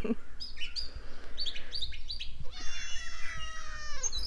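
A domestic cat gives one long meow, about a second and a half, falling slightly in pitch, near the end. Before it, small birds chirp a handful of short times in the background.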